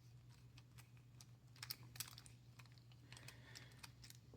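Faint scattered small clicks and ticks of metal padlock parts being handled as the lock is reassembled.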